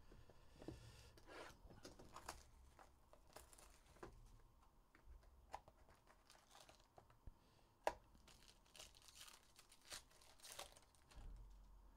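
Faint tearing and crinkling of a Panini Obsidian football card pack being opened by hand, with scattered light clicks of cards being handled; one sharper click about eight seconds in.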